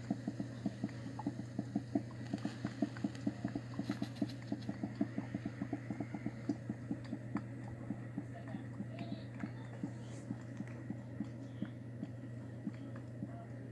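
Leaking coffee machine dripping in rapid little ticks, several a second, thinning out after about halfway, over a steady low hum.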